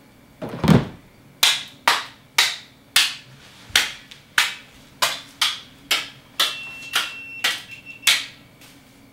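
Hockey sticks striking Christmas ornaments in quick succession: one dull thump, then about a dozen sharp clacks, roughly two a second, each ringing briefly.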